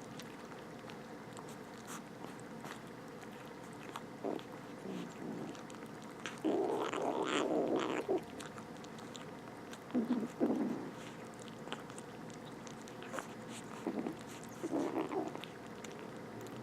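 Kittens eating, with small wet chewing and biting clicks throughout. Three times they make short, rough growling noises over their food, the longest lasting about a second and a half near the middle.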